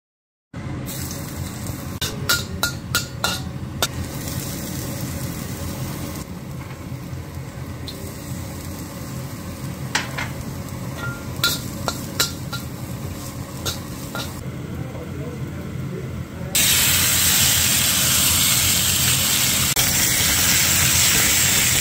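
Chopped garlic sizzling in hot oil in a pan, with a metal spatula clicking and scraping against the pan. About sixteen seconds in, the sizzle jumps much louder as raw chicken pieces go into the hot oil and start frying.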